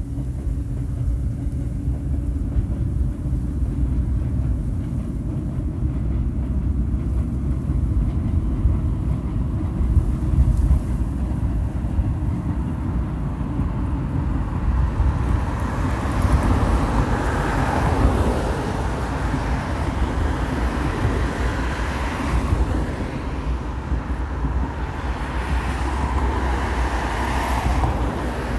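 Electric commuter train running along an elevated viaduct, mixed with road traffic and a low rumble of wind on the microphone. The train and traffic sound grows fuller about halfway through and stays so.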